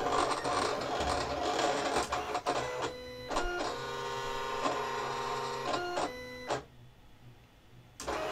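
Silhouette Cameo vinyl cutter cutting test shapes: the carriage and roller motors whir and whine in short stop-start runs as the blade traces each shape. About six and a half seconds in the machine stops, and a brief whir follows near the end.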